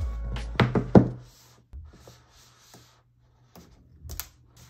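Shrink-wrapped cardboard phone box set down on a table with two knocks, hands rubbing over its plastic wrap, then sharp crackles near the end as the wrap's tear strip is pulled.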